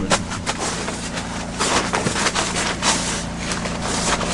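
Portable generator running steadily as a low hum, with irregular rustling, clicks and knocks of gear being handled close by.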